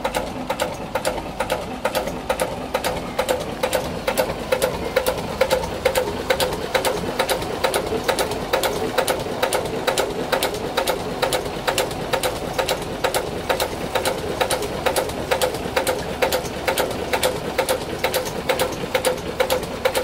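Vintage two-cylinder narrowboat engine running at slow, steady revs, an even beat of about three to four firing knocks a second with mechanical clatter.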